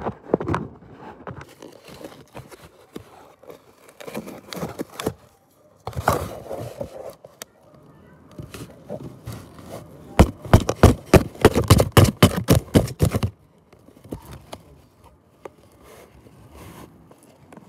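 Cardboard box wall being torn open, crackling and ripping, heard from inside the box. It comes in bursts, with a short burst about six seconds in and a longer, louder run from about ten to thirteen seconds in, and quieter rustling between.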